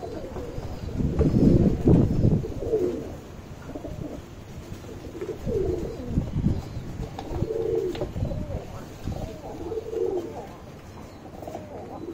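Domestic pigeons cooing, low calls repeating every two seconds or so, with a louder low rumble about a second in.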